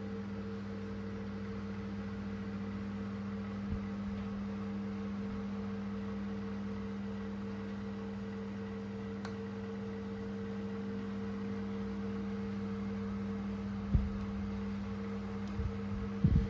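Vintage Xpelair Taurus T8 electric desk fan running steadily while oscillating: an even motor hum with the rush of its blades. A sharp knock about two seconds before the end and a couple more just before the end.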